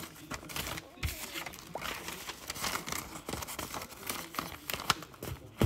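A sheet of yellow legal-pad paper being handled and folded, giving irregular paper rustles and crinkles.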